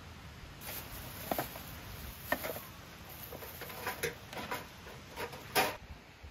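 Plastic bags crinkling and rustling as they are handled, in a run of short crackles with the loudest near the end.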